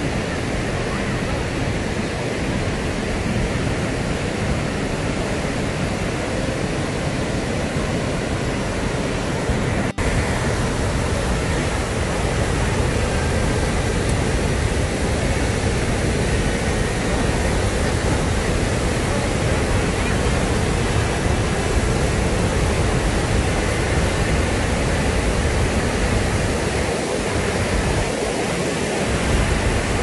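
Steady rush of brown floodwater pouring through the rocky rapids and falls of a large river waterfall. There is a brief dropout about ten seconds in.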